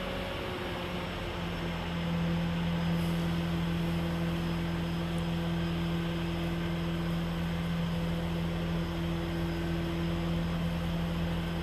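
Steady mechanical hum over an even rushing noise, with a slight step in pitch about a second in.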